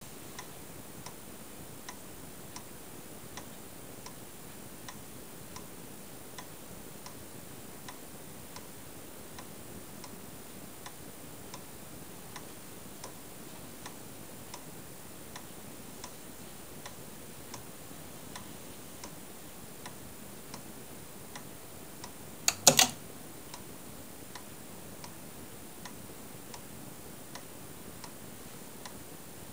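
Siemens & Halske pendulum master clock ticking steadily, a light tick roughly every three-quarters of a second. About 22 seconds in, its relay clacks two or three times, much louder than the ticks, as its contacts switch; the contacts spark on opening because the RC arc-suppression circuit is not working properly.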